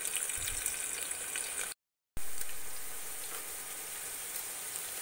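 Sliced onions sizzling and crackling in hot oil in an aluminium pressure cooker. The sound cuts out for a moment about two seconds in, then comes back a little louder and settles to a steady sizzle.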